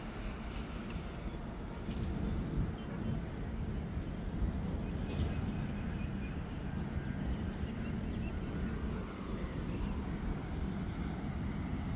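Steady low outdoor rumble with faint, high, short chirps recurring every second or so.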